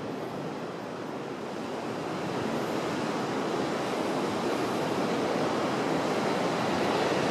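Tasman Sea surf breaking against the coast below the limestone cliffs: a steady rushing that swells slowly louder, mixed with wind.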